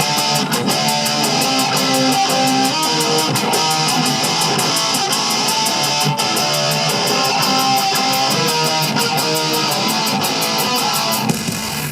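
Live band playing loud music built on a strummed electric guitar over a steady beat.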